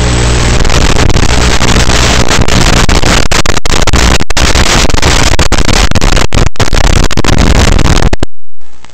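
Loud, even hiss of analog FPV receiver static recorded by the goggles, with several brief dropouts and a near-total cut-out about eight seconds in. It is the sound of the analog video link breaking up as the drone flies low under a vehicle.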